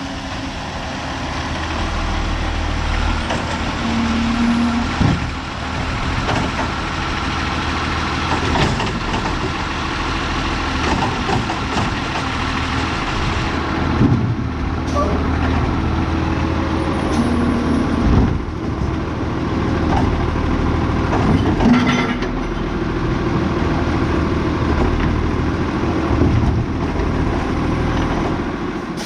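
Diesel garbage truck running, a steady engine drone broken by several metal clanks and knocks.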